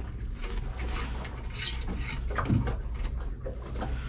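Light clicking and clattering of hands at work in a boat's engine compartment during a coolant check, a scatter of small knocks over a steady low hum.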